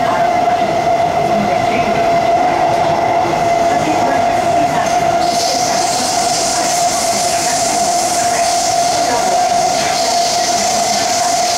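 Cabin of a Kawasaki-CRRC Sifang C151C MRT train running through the tunnel: steady running noise with a steady whine throughout. About five seconds in, a hiss joins it and holds to the end.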